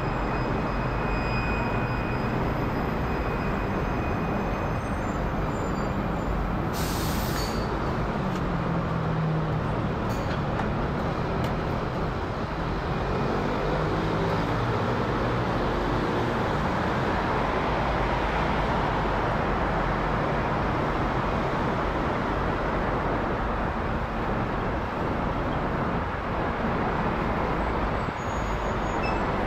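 Boeing 787-9's GEnx turbofan engines passing overhead at a few thousand feet: a steady distant jet roar that swells slightly mid-way, with a brief hiss about seven seconds in.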